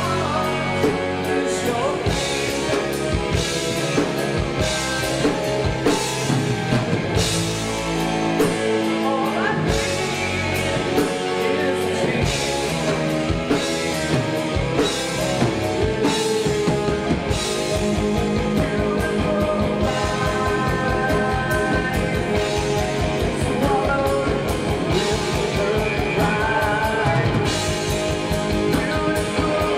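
Live rock band playing: electric guitar, bass guitar, drum kit and an Alesis keyboard, with a male lead singer. About halfway through, the low end turns into a fast, even pulse.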